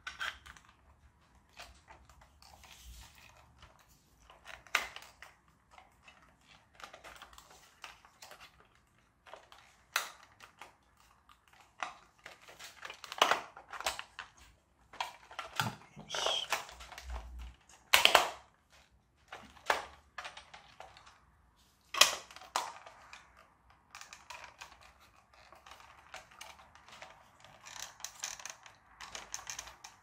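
Irregular small clicks, taps and rustles of the plastic parts and wiring of a 1:16 scale radio-controlled toy tractor being handled and fitted together by hand, with a few sharper knocks.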